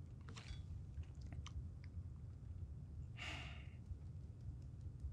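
Quiet room tone with a low hum, a few faint mouth clicks, and one audible breath, an inhale or sigh, a little over three seconds in.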